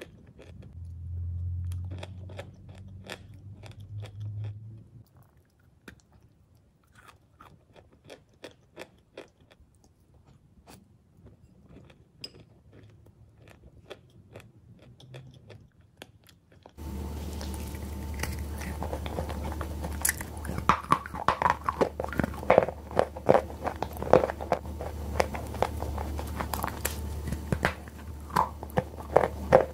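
Close-miked chewing of edible chalk with clay paste: soft crunches and small mouth clicks. About halfway through the level jumps to louder, sharper crunches of chalk pieces being bitten and chewed over a steady low hum.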